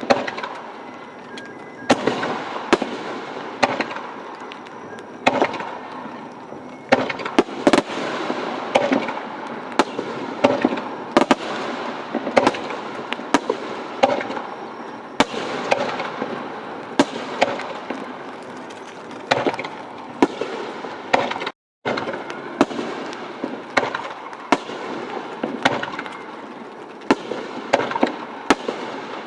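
Aerial fireworks display: shells bursting in rapid succession, many sharp bangs over continuous crackling.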